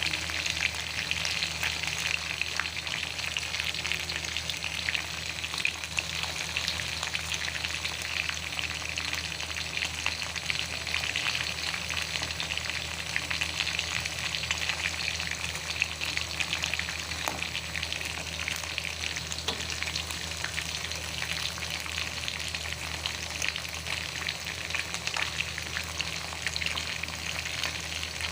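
Food frying in hot oil in a pan: a steady, dense sizzle full of fine crackles that keeps on without a break.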